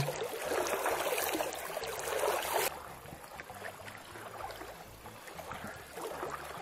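A released chub splashes at the surface as it darts away, followed by a couple of seconds of water splashing and sloshing. About two and a half seconds in, this cuts off abruptly to a quieter, steady wash of moving river water.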